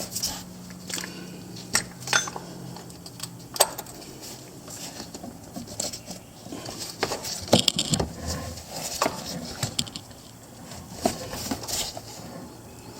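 Irregular metallic clicks, clinks and light knocks of hand tools and parts being handled while working at the oil filter, busiest and loudest a little past the middle.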